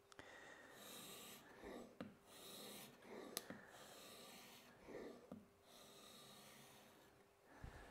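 Faint rasping strokes of a plane blade in a roller honing guide worked across a 30-micron abrasive film on a glass plate, several strokes with short pauses between them and a couple of light clicks.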